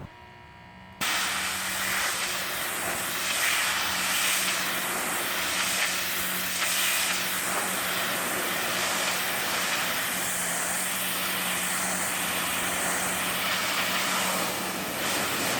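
Northstar 230-volt, 3000 PSI electric pressure washer spraying through its regular high-pressure nozzle, the jet hissing steadily as it blasts moss off a hard surface, with a steady pump hum under it. It starts abruptly about a second in.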